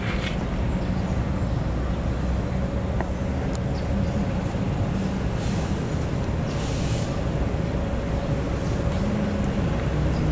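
Steady low rumble of city road traffic, with a brief hiss about six to seven seconds in.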